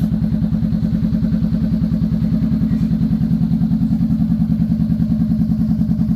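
Honda Rebel 500's parallel-twin engine idling steadily through freshly fitted Von and Hans aftermarket mufflers, a fast, even exhaust pulse with no revving.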